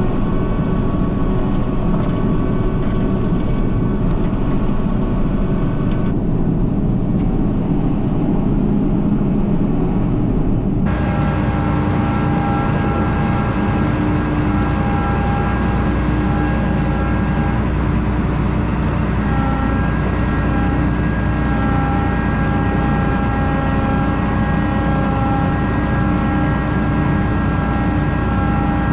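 Combine harvester running steadily at working speed, a broad mechanical rumble with steady whining tones from its drives. The sound shifts abruptly twice, about six and eleven seconds in.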